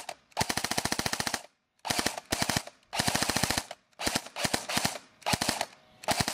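Airsoft guns firing on full auto: short, rapid bursts of evenly spaced shots, about eight bursts with brief pauses between, the first one longest at about a second.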